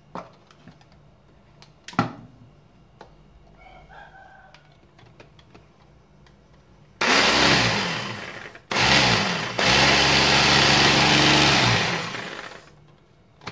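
MR DIY hand blender with its chopper bowl attachment, run in three bursts, the last about three seconds long, its motor whirring loudly as the blades chop vegetables. A couple of sharp clicks come before it.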